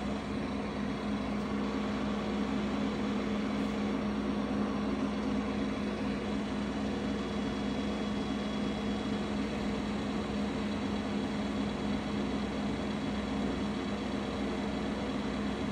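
Mecca Turn 460x1000 lathe running with its carriage travelling on power feed at the minimum feed rate: a steady mechanical hum with a strong low tone that does not change.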